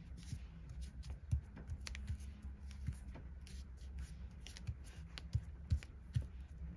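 Soft rustling and light taps of a glued paper-and-acetate slide being handled and pressed on a craft mat, scattered small clicks throughout, over a low steady hum.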